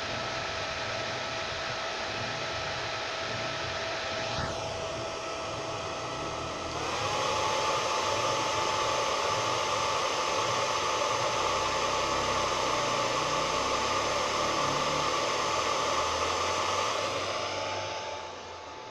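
Hair dryer blowing steadily, a rushing of air over a motor whine. About seven seconds in, the whine steps up in pitch and the blowing gets louder, as if switched to a higher speed. Near the end it drops back down.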